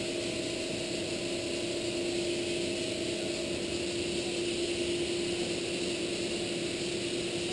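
Steady machine hum: one constant mid-pitched tone with a weaker overtone over an even hiss, unchanging throughout.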